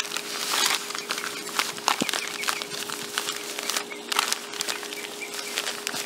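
Bag of play sand crinkling and rustling as it is handled and tipped by its spout to pour sand into a plug hole, with a run of irregular small crackles and a few louder rustles.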